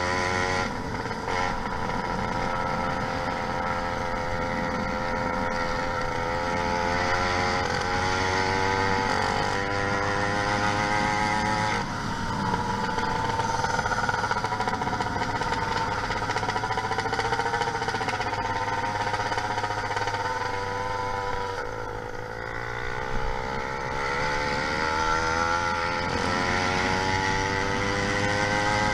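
YD100 two-stroke engine with a window piston, on a motorized bicycle, running steadily. Its pitch rises and falls with the throttle, drops briefly about three quarters of the way through, then climbs again near the end.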